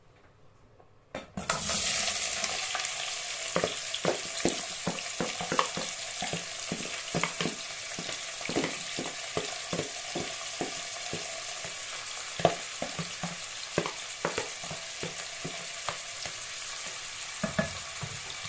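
Chopped vegetables landing in a pot of hot oil, which hisses loudly and suddenly about a second and a half in, then keeps sizzling as they fry. A wooden spoon stirs them, knocking against the metal pot a couple of times a second.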